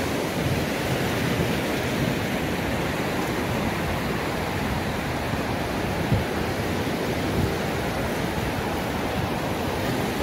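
Steady rushing noise of small surf washing onto a sandy beach, with a brief thump about six seconds in.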